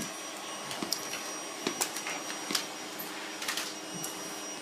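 Vacuum cleaner running with a steady hum, with short knocks and clicks scattered over it about once a second.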